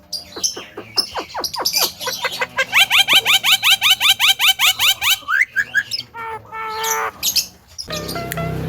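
Javan myna calling: a run of quick downward-sweeping whistles, then a fast train of falling notes, about ten a second, for a couple of seconds, then a few varied calls. In the last second a different sound with steady stepped tones begins.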